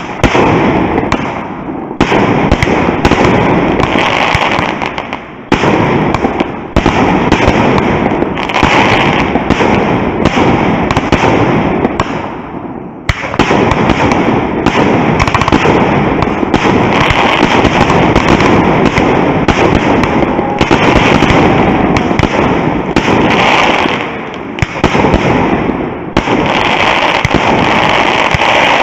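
Fireworks going off in a dense, near-continuous run of bangs and crackling, with short lulls about halfway through and again near the end.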